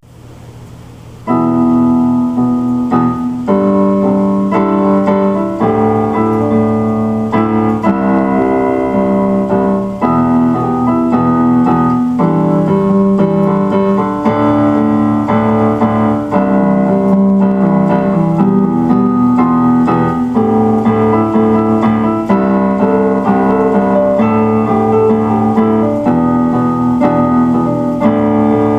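Background piano music, an electric-piano-like keyboard playing steady chords and notes in a regular rhythm; it fades in faintly and comes up to full level just over a second in.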